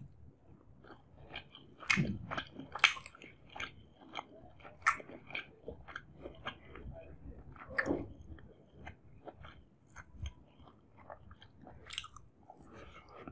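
A person chewing and biting food: irregular wet mouth clicks and smacks, a few much sharper than the rest.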